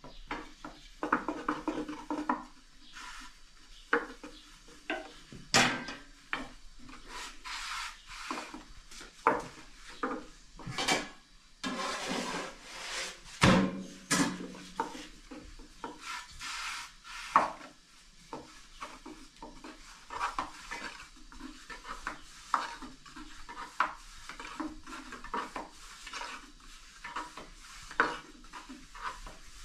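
Long, thin wooden rolling pin rolling out flatbread dough on a round wooden board, with irregular wooden knocks and rubbing as it clacks against the board.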